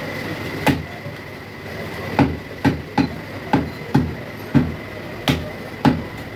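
Meat cleaver chopping goat meat on a wooden log chopping block: nine sharp strikes, one about a second in, then a run of eight quick chops about every half second.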